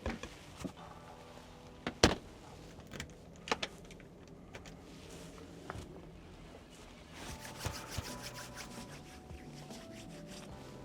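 Scattered sharp knocks and clicks, the loudest about two seconds in, with a busier run of small clicks about seven seconds in.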